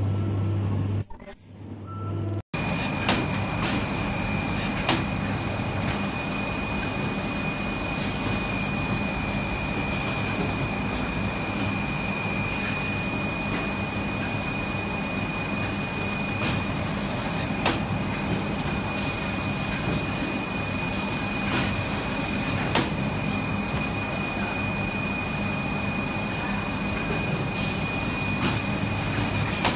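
Steady garment-factory machine noise, with a constant high-pitched whine and sharp clicks every few seconds from the pressing and bonding machines.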